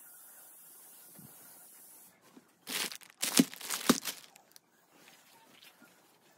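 Clear plastic packaging bag crinkling and rustling in irregular bursts as it is handled, loudest between about three and four seconds in. A faint steady hiss comes before it in the first two seconds.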